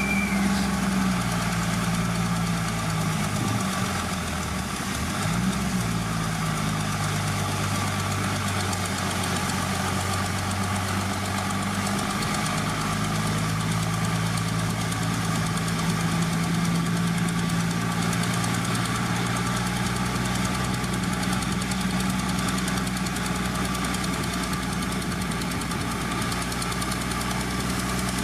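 Heavy earthmoving machine's diesel engine running steadily, its pitch dipping briefly and recovering a few seconds in. A short high squeal sounds right at the start.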